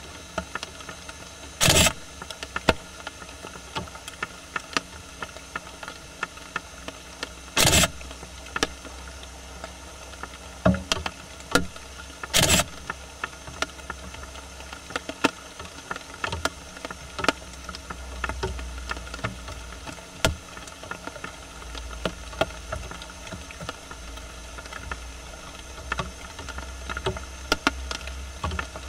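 Japanese raccoon dog (hondo tanuki) foraging in dry leaf litter: scattered small clicks and rustles, with three louder short scuffles early on, over a steady background hiss.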